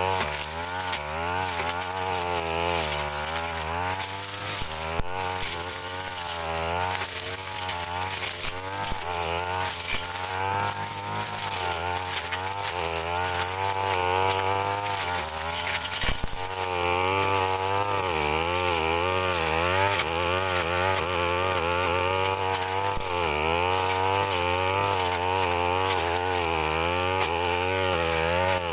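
Backpack brush cutter engine running hard, its pitch rising and falling continually as the cutting head works through dense weeds and undergrowth.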